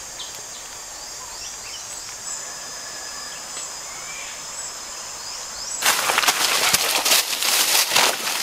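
Forest ambience with a steady high insect drone and scattered bird chirps. About six seconds in, it gives way to loud crackling and snapping of dry sticks and leaves being handled on the forest floor.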